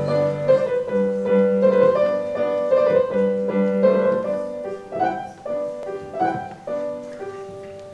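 Solo piano playing a slow melody of single notes over low held bass notes, growing quieter toward the end.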